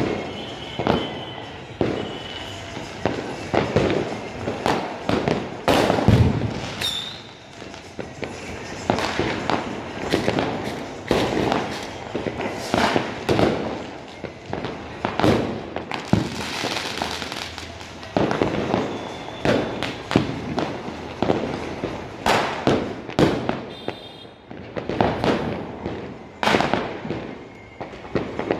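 Diwali fireworks and firecrackers going off: a near-continuous stream of overlapping bangs and pops, several a second, with a short whistle about seven seconds in.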